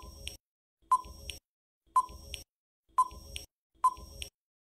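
Countdown-timer sound effect: a short beep about once a second, each one sharp at the start and quickly fading.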